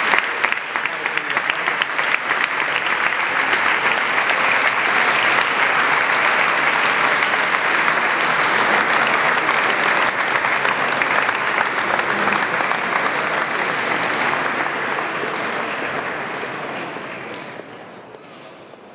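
Audience applauding, a dense, steady clatter of clapping that fades out over the last few seconds.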